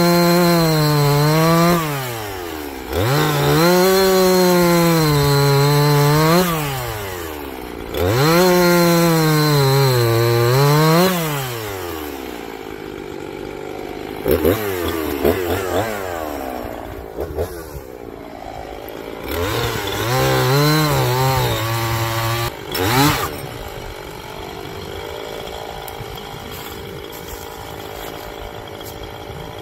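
Husqvarna 345 two-stroke chainsaw making test cuts through a log at full throttle, its engine pitch sagging under load in each cut and dropping back to idle between them: three long cuts in the first eleven seconds, then shorter bursts and a quick rev. It settles to a steady idle for the last several seconds.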